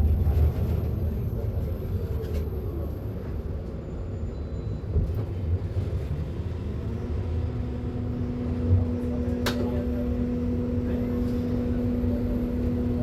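Mercedes-Benz eO500U electric bus with a steady low rumble. About halfway through, a steady electric-drive whine comes in and holds at one pitch, and there is a single sharp click near the end.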